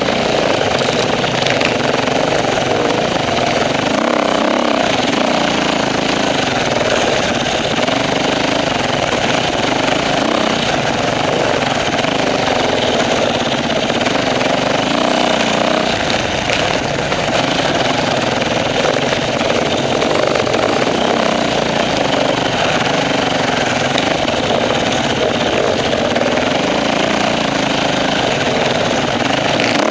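Off-road enduro motorcycle engine running close up as the bike rides a rough forest track, its pitch rising and falling over and over with the throttle.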